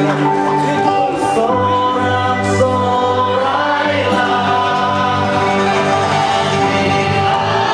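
Live gospel praise-and-worship music: a band with guitar and bass, and singers performing an upbeat song.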